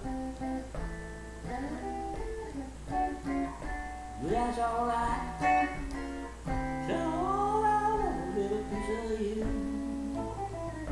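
Swamp-rock guitar playing with a man's singing voice; the voice slides up into long held, wavering notes about four seconds in and again from about seven to nine seconds.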